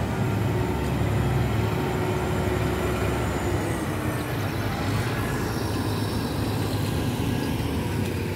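Road traffic: a steady low engine rumble of passing vehicles, with a faint engine tone that drops away about three and a half seconds in.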